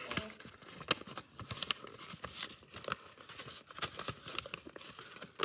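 A sheet of origami paper rustling and crackling as it is folded and creased by hand, with irregular sharp crinkles several times a second.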